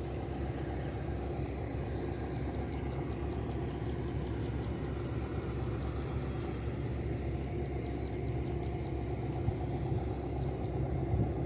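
An engine idling steadily: a low, even rumble that holds the same level throughout.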